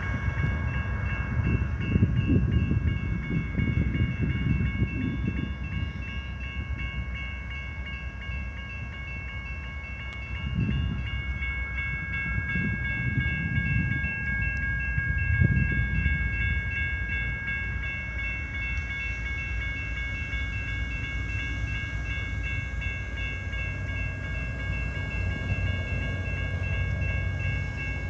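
Railroad grade-crossing warning bell ringing steadily in high, repeating tones, the crossing's warning for an approaching freight train. Irregular low rumbling underneath, strongest in the first few seconds and again around ten and fifteen seconds in.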